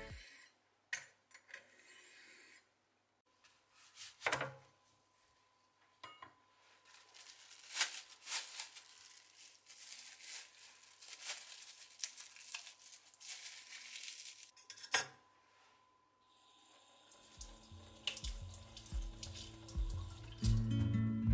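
Kitchen handling sounds: a few light knocks on a wooden cutting board, then plastic cling film crinkling as it is peeled off a piece of white radish, and a sharp click. Near the end a kitchen tap runs water over the radish at the sink while guitar music fades in.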